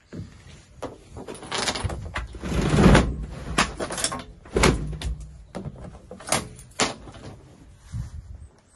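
Clattering and a string of sharp knocks from a pick-up truck's roll-top load bed cover being handled and slid along its rails, with a rushing slide about two seconds in.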